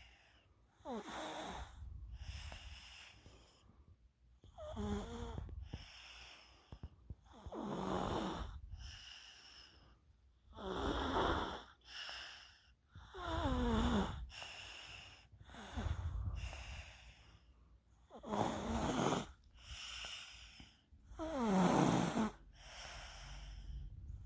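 Snoring in deep sleep: slow, regular breaths about every three seconds, the louder ones each gliding down in pitch, with quieter breaths between.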